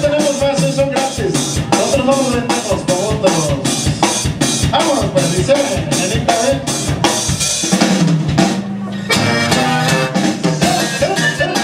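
A band playing Latin music with a steady drum-kit beat of snare and bass drum under a melody. The drums drop out briefly about eight seconds in.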